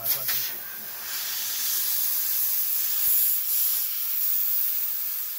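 A compressed-air blow gun hissing steadily as it blasts dirt off a Hydro-Gear ZT-2800 transmission housing. It rises and falls a little in loudness.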